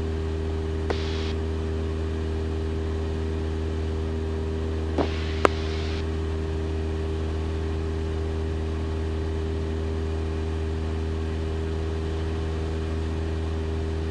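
Cessna 172 Skyhawk's engine and propeller drone steadily in cruise. A few brief clicks come about a second in and twice around five seconds in.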